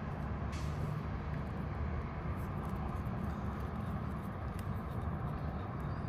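A steady low rumble of background noise, with a few faint light clicks from a small screwdriver and a plastic terminal plug being handled as a wire is fitted.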